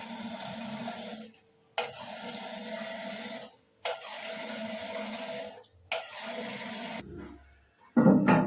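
Water rushing into a toilet cistern through a newly fitted ball cock fill valve, in four separate bursts. Each burst starts with a click and stops sharply, as the valve is tested for turning the water on and off.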